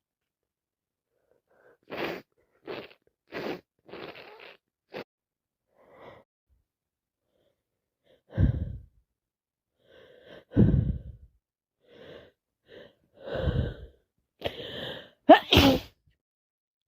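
A person with a cold sneezing again and again: a run of quick sharp breaths, then four louder sneezes in the second half.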